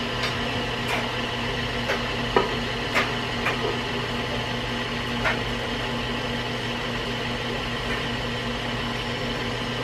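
Electric mixer motor running steadily with a hum as it mixes bread dough, with a few light taps and clicks scattered through.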